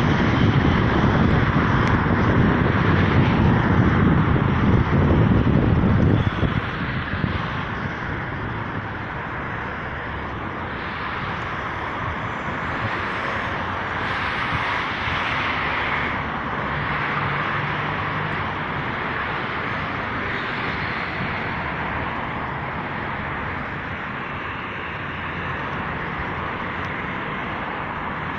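Steady road-traffic noise from cars and buses on a bridge roadway. A louder low rumble fills the first six seconds, then drops off suddenly to a steady hum.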